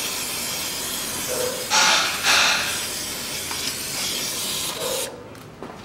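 Aerosol cleaner spraying in a steady hiss onto the front differential housing to wash off oil drips after a gear-oil change, with two louder blasts about two seconds in; the spray cuts off suddenly about five seconds in.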